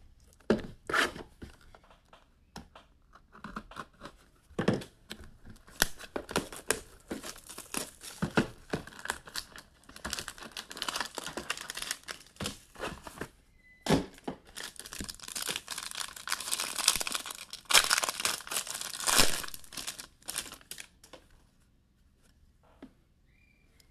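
Trading-card packaging being torn open: plastic wrapping ripped and crinkled, with scattered clicks and taps. The ripping and crinkling is densest in two stretches in the middle.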